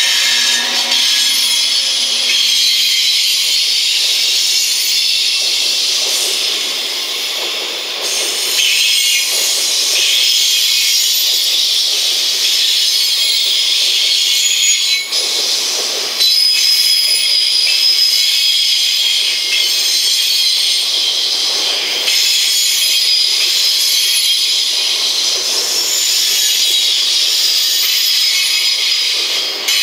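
Freight train container flatcars rolling past, their wheels screeching continuously against the rails: an intense, high-pitched friction squeal with whistling tones over the lower rumble of the wheels.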